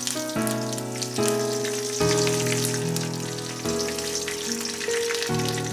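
Fresh curry leaves crackling and sizzling in hot mustard oil with mustard seeds and a dried red chilli, just dropped into the kadai. Background music plays throughout.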